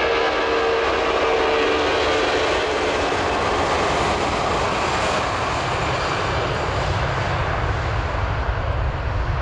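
Airbus A340's four jet engines at takeoff power during the takeoff roll: a loud, steady jet roar. A humming tone in it fades after about two seconds, and a deep rumble builds near the end.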